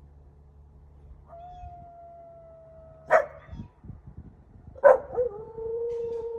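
Dog howling: one long, steady howl starting about a second in, then a lower howl that begins about five seconds in and holds. Two sharp, loud cracks, about three and five seconds in, are the loudest sounds.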